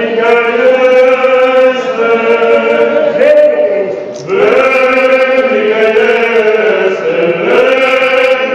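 Male choir singing Orthodox church chant: long held notes of a melody over a steady lower drone note, with a short break about four seconds in before the singing resumes.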